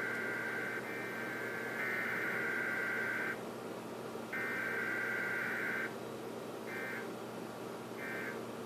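Emergency Alert System test transmission: the warbling digital SAME header data burst repeats in long bursts about a second apart. Near the end come two short bursts about a second apart, the end-of-message code. A faint steady hum lies underneath.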